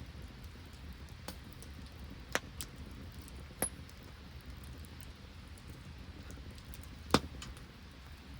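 Wood campfire crackling: a few sharp, scattered pops, the loudest about seven seconds in, over a steady low hiss.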